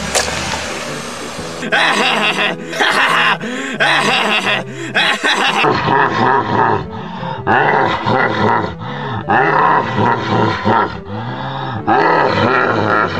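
A man laughing loudly in repeated bursts, after a short noisy rush at the start.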